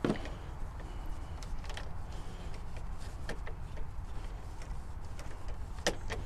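Cloth rag rubbing and wiping over a plastic latch housing with rubbing alcohol, with a few light clicks and taps from the hand against the parts, over a low steady hum.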